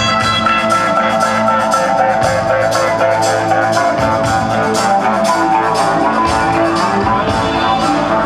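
Loud rock music with distorted electric guitars over a steady drum beat.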